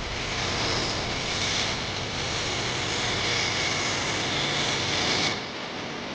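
A steady rushing hiss that cuts off abruptly about five seconds in.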